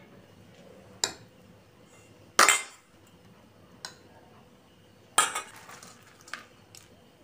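A serving ladle and spoon clinking against steel serving bowls and a dinner plate as food is served: about five separate sharp clinks, the loudest about two and a half seconds in and again about five seconds in.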